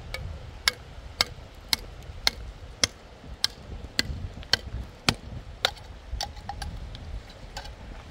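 Sharp metal-on-concrete taps, a hand tool striking a concrete building block, about two a second with a short ring after each strike.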